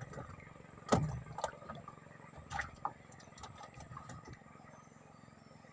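A few sharp knocks and thumps on a wooden boat's planked deck, the loudest about a second in, over a faint steady background hum.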